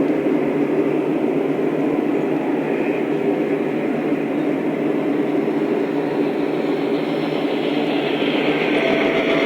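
Lionel O-scale model trains running on the track, a steady rumbling whirr of wheels and motors.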